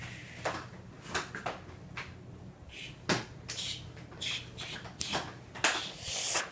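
Scattered light knocks, taps and rustles, with a few short hissy sounds around the middle.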